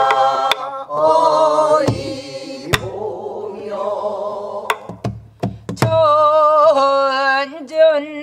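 Several voices singing pansori together, holding long notes that waver in pitch, with pauses between phrases. Beneath the singing, buk barrel drums are struck now and then: single sharp strokes, several of them bunched about two-thirds of the way through.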